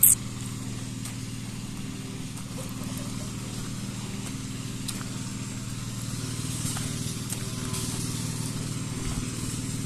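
A farm tractor engine running steadily at a constant speed while forage is being cut for cattle feed. There is a short, sharp high-pitched squeak at the very start.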